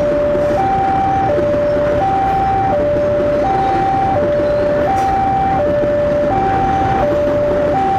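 Level-crossing warning alarm sounding a two-tone high–low chime, switching pitch about every three-quarters of a second, over the continuous rolling rumble of a long coal train's open wagons passing over the crossing.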